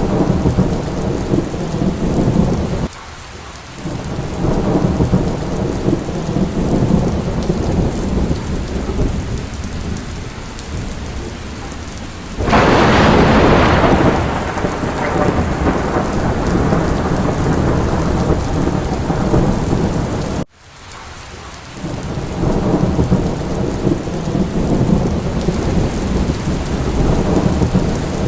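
Steady rain with low rolling thunder. A loud thunderclap breaks about twelve seconds in and rumbles away over a couple of seconds. The sound drops abruptly and swells back twice.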